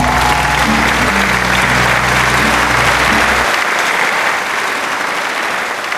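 Audience applauding at the end of a performance, over the backing music's last low notes, which stop about three and a half seconds in.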